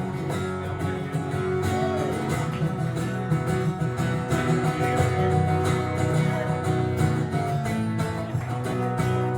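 Live country band playing an instrumental break: guitar to the fore over bass and a steady drum beat.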